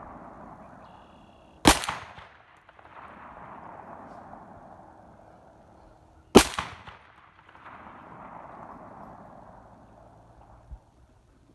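Two shots from a 10mm Glock 40 MOS pistol firing 155-grain handloads, about five seconds apart, each a sharp crack with a brief echo.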